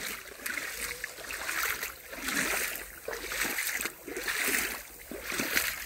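Feet wading through shallow, cold spring water, splashing with each step at about one step a second.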